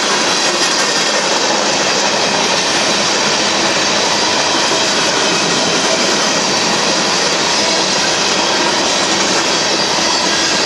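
Freight cars of a Union Pacific manifest train rolling past close by, a loud, steady noise of steel wheels on the rails.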